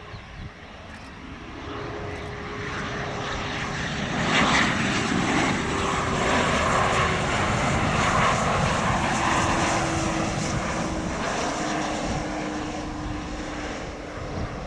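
Twin rear-mounted turbofans of a Gulfstream business jet on final approach, passing close by with the gear down: a jet rush that builds and is loudest from about four seconds in, then slowly fades. A steady engine whine under the rush drops in pitch as the jet goes past.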